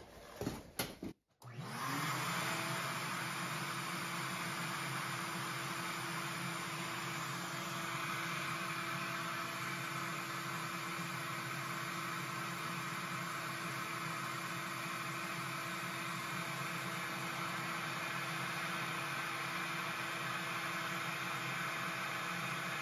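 A few knocks from handling, then the Bosch 1617 router and the shop vacuum on its dust port switch on about a second in. The motor pitch rises briefly as it spins up, then both run with a steady whine and rush of air.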